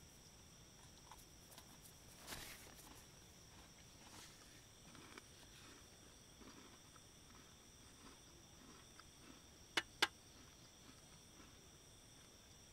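Crickets trilling steadily at night, a faint, even high-pitched chorus. A few soft knocks and rustles of handling come through, and two sharp clicks close together about ten seconds in are the loudest sounds.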